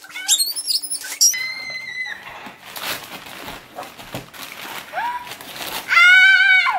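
Gift wrapping paper rustling as a present is pulled open, with children's high-pitched excited squeals; one loud, long squeal near the end.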